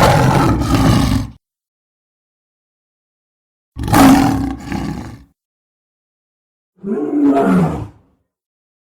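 Three separate dragon roar sound effects, each about a second to a second and a half long and split by silence; the last one has a wavering, bending pitch.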